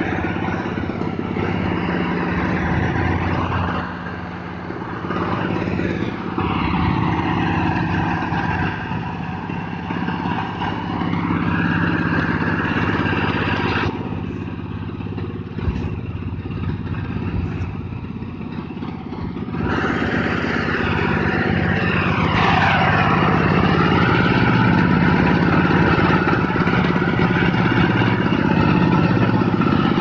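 Small tractor's engine running steadily close by as it hauls a trailer spreading stone chippings onto fresh tar; its note rises and falls at times.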